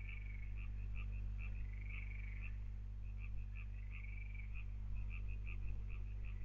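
Frogs calling in a rapid series of short croaks, about four or five a second, with a warbling call every two seconds or so, over a steady low hum.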